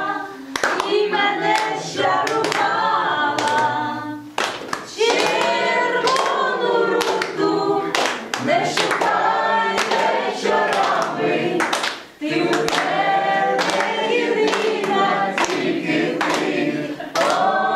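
A small folk trio, a man and two women, singing together while the guests clap along, with short breaks between phrases.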